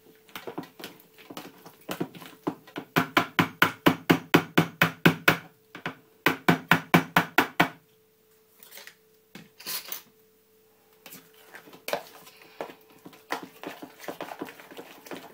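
Metal kitchen utensil mashing and beating baked beans in stock in a bowl: quick knocking strokes about five a second in two runs, then slower, softer taps and scrapes.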